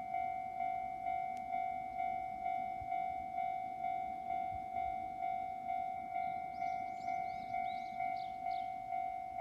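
Japanese railway level-crossing alarm ringing: an electronic bell tone repeating steadily about twice a second, warning that a train is approaching.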